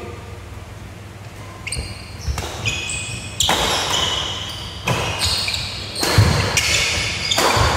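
A badminton rally on a wooden indoor court: a string of sharp racket hits on the shuttlecock and footfalls, with high squeaks of sports shoes on the floor, echoing in a large hall. The hits come faster and louder through the second half.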